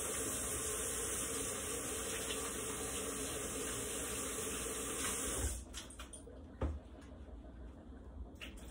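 Water running from a tap as hands are washed under it, shut off abruptly about five and a half seconds in, followed by a couple of light knocks.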